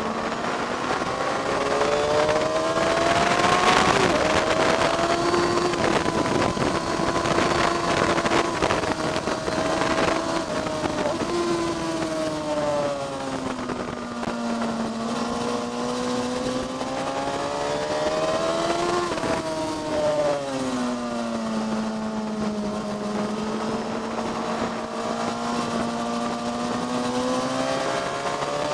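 Motorcycle engine heard onboard on a racetrack lap. Its note climbs under acceleration and drops as it slows for corners, several times over, with a sharp peak and fall about 19 seconds in. Wind rushes over it, strongest in the first third.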